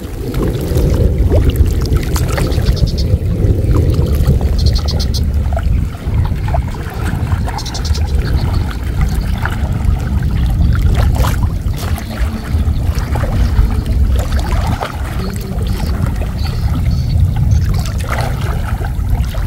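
Water sloshing and splashing as a person wades waist-deep through floodwater, dragging a woven net fish trap and a bamboo fish basket. A short splash or knock comes every few seconds over a steady low rumble.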